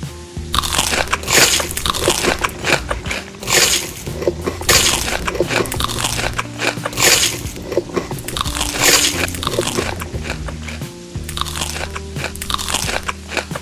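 Crunchy food being bitten and chewed close to the microphone, in repeated bursts of crunching, over steady background music.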